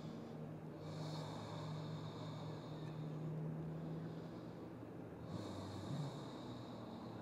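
Two long, slow breaths by a person resting in child's pose, over a faint steady low hum.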